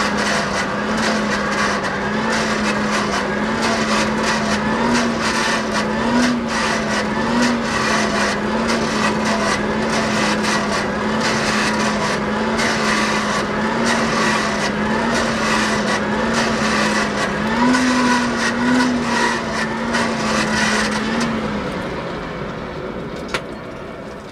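Coal forge blower running with a steady hum over the roar and crackle of the fire as the piece heats. About 21 seconds in the blower stops and the air noise dies away, with a single sharp clink near the end.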